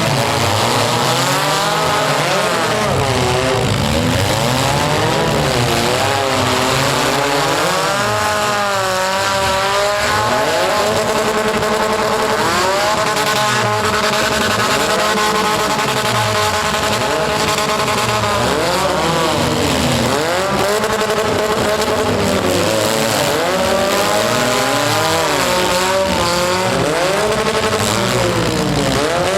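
Several compact cars' engines revving up and down at once, their pitches rising and falling over one another, with tyres squealing.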